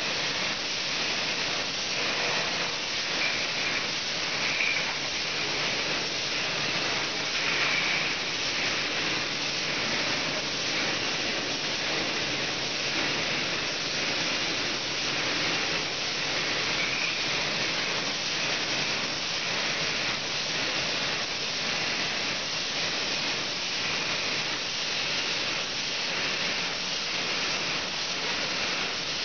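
Rinser-filler-capper bottling line running on 5-litre PET bottles of still water: a steady hiss of water and air, with faint ticking and clatter of bottles and machine parts.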